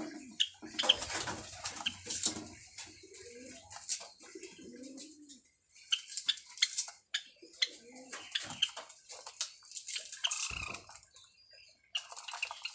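Java sparrows calling: a run of short, sharp chips and clicking notes mixed with a few low, warbling notes, with brief pauses.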